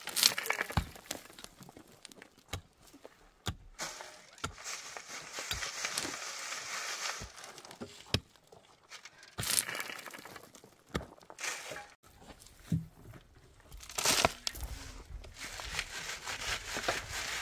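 Soil and grit being shaken through a round hand sieve and falling into a metal wheelbarrow, heard as stretches of rushing, rattling sound, mixed with sharp knocks and scrapes of a shovel digging stony ground.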